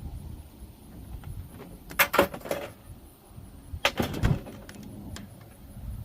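Knocks and clatter from a refrigerator being taken apart for scrap: a quick cluster of sharp strikes about two seconds in, another about four seconds in, and a few light ticks between.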